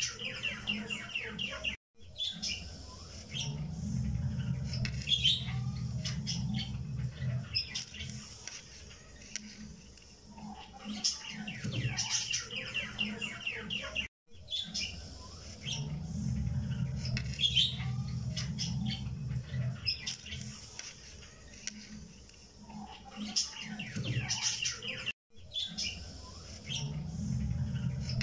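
Birds chirping and trilling over a low hum, in a recorded background loop that repeats about every eleven seconds with a brief drop-out between repeats.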